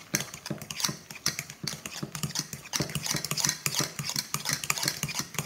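Boiled potatoes and butter being mashed by hand in a pot, the utensil knocking and scraping against the pot in quick, uneven strokes.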